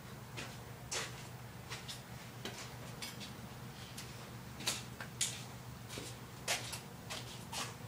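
Scattered light clicks and knocks at irregular intervals, a few sharper ones in the second half, over a low steady hum.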